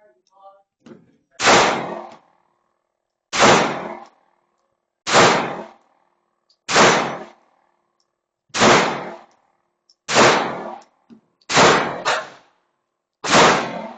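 Airsoft pistol fired shot by shot at steel targets: nine sharp reports, each with a short decaying tail, spaced about every one and a half to two seconds, two of them close together near the end.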